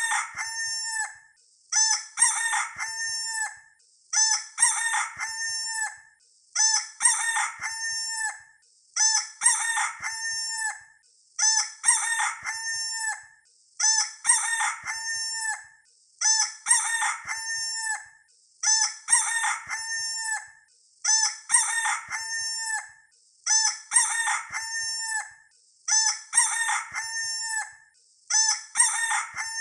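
A rooster crowing, the same short crow repeated over and over about every two seconds, as a looped sound effect.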